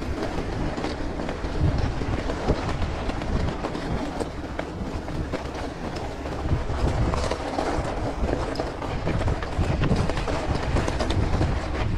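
Mountain bike ridden over a pebble and rock beach: tyres crunching over stones while the bike rattles with many small irregular knocks, over a steady low rumble.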